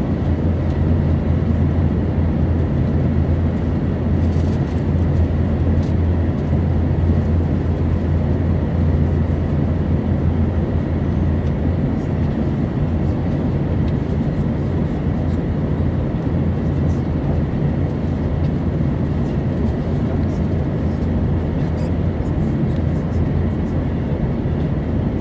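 Airplane engines at full power heard from inside the cabin: a steady, deep drone with a faint steady high tone above it.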